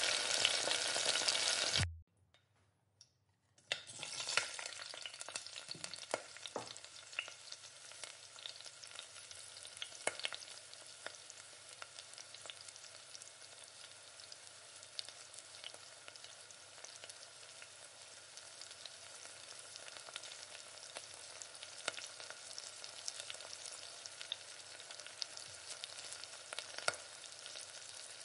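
Onion and capsicum pieces sizzling in a nonstick frying pan on high heat, stirred with a wooden spatula that clicks and scrapes against the pan. The sizzle is loud for about two seconds, drops out briefly, then comes back softer and steady with scattered spatula clicks.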